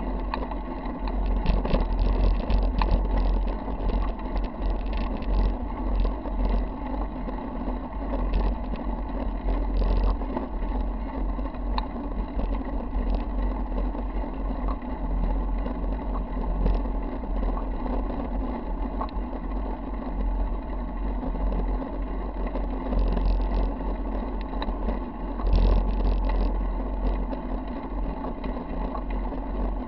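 Mountain bike rolling along a paved road, heard from a camera on its handlebars: a steady low rumble of wind and tyres, with frequent clicks and rattles as the bike jolts over cracks.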